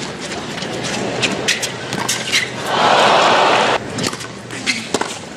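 Tennis on a hard court: sharp racket-on-ball strikes and court sounds, with a loud burst of crowd applause about three seconds in that cuts off abruptly at an edit. A few more sharp ball strikes and bounces follow as the next point begins.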